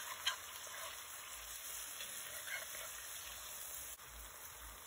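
Meat and chopped vegetables sizzling faintly in a hot Dutch oven, a steady hiss, with a couple of metal spoon knocks against the pot at the very start.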